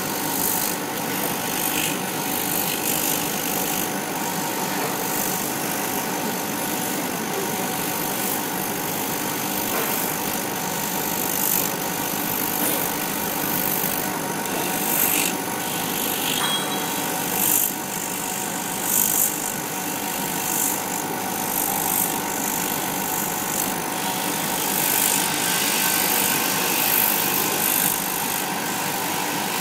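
Laser cutter running as it cuts shapes out of paper card: a steady mechanical hum and hiss with a few held tones, and short louder rushes every few seconds as the cutting head moves.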